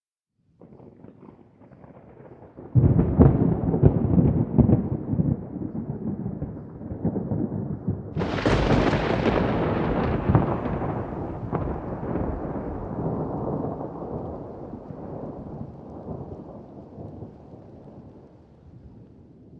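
Thunder. A faint low rumble rises out of silence and breaks into a loud, crackling rumble about three seconds in. A sharper crack follows about eight seconds in, then the rumble rolls on and slowly dies away.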